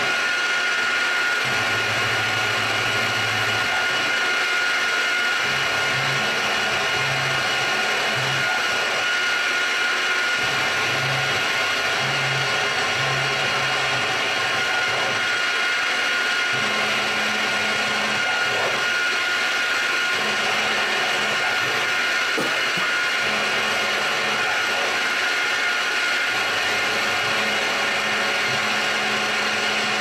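Small CNC milling machine engraving a metal plate with a 1/8 inch center drill. The spindle runs with a steady high whine, while the stepper-driven axes hum underneath at low pitches that step up and down every second or so as the cutter traces the lettering.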